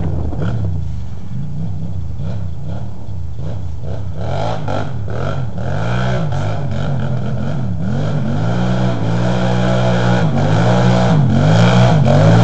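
2009 Can-Am 800 ATV's V-twin engine with a Looney Tuned aftermarket exhaust, revving up and down repeatedly and growing louder as the quad approaches up a sand trail.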